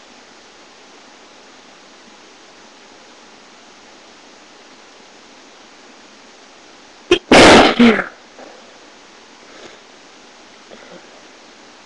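A single loud sneeze into a handkerchief about seven seconds in: a short sharp catch, then the main burst. It sits over a steady hiss of poor-quality microphone noise, and a few faint small sounds follow.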